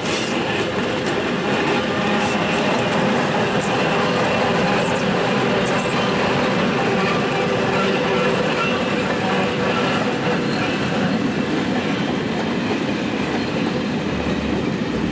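A passenger train hauled by Czech-built ČKD T669 diesel locomotives running along the line, with a steady engine drone and the clatter of wheels on the rails.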